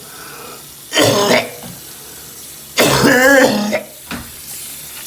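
A person choking and gasping for breath during a spasm brought on by persistent hiccups. There are two loud strained coughs or gasps, one about a second in and a longer one near three seconds whose voice wavers in pitch, then a short catch of breath just after.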